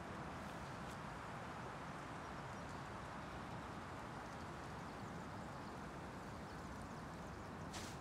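Steady, even rushing hiss of a forest ambience, with a couple of faint ticks in the first second and a sharp click right at the end.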